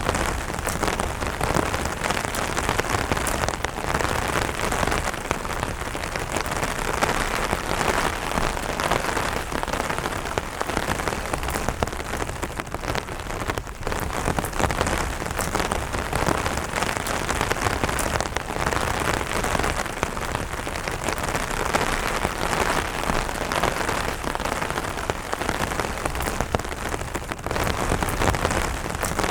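Steady light rain falling on an umbrella canopy, a dense, even patter of many individual drops.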